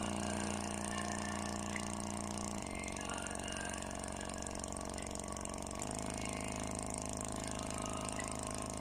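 Small bare oval speaker driver playing sustained deep bass notes at large cone excursion, buzzing with distortion. The note changes twice, about two and a half and six seconds in.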